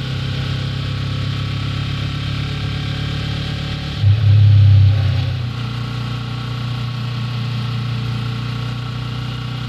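Yamaha R3's 321 cc parallel-twin engine running steadily while the motorcycle is ridden, with a surge in level for about a second around four seconds in, after which the engine note shifts slightly.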